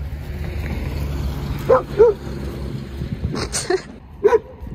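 A dog barking: a few short, sharp barks, two close together about two seconds in and another near the end, over a low rumble that fades partway through.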